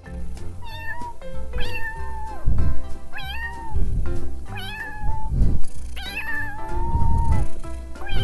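Kittens meowing repeatedly: about six high-pitched meows that rise and then hold, one longer drawn-out meow near seven seconds in, over background music.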